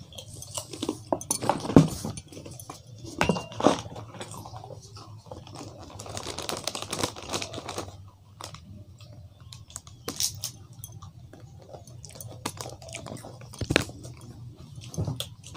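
Crunchy snack being chewed, with scattered clicks and the crinkle of a plastic snack packet being handled.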